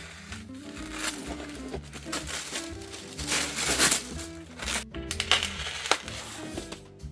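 Background music with a steady melody, over loud rustling and crinkling of packaging being handled, strongest about three to four seconds in.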